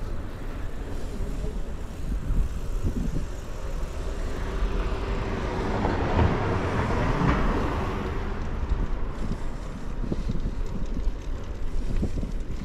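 Outdoor traffic noise with a low wind rumble on the microphone. A vehicle passes about halfway through, swelling and then fading.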